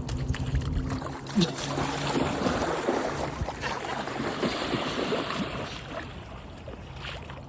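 River water splashing and sloshing as a Newfoundland dog swims and wades after a thrown toy, easing off about six seconds in.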